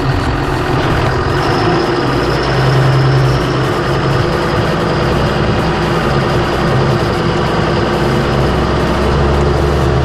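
Diesel engine of a John Deere 6920S tractor running steadily as it tows a trailer loaded with shelled corn across a field.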